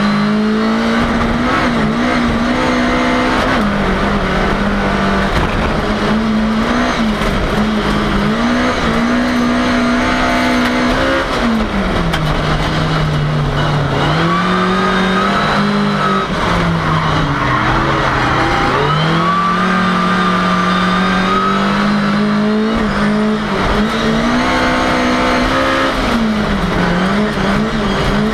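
Ford Cortina race car's engine heard from inside the car, running hard at high revs. The pitch rises and falls, with two longer drops about halfway through before it climbs again.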